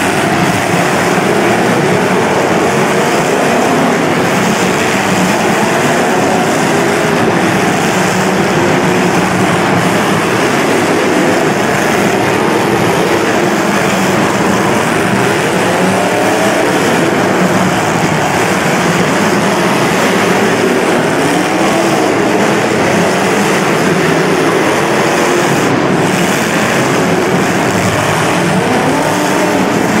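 Several demolition derby cars' engines running and revving together, many pitches rising and falling over one another in a loud, steady din.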